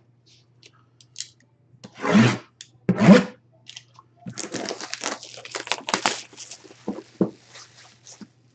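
Sealed box packaging being opened by hand: two louder rustles, then a run of crackling and tearing from about four seconds in.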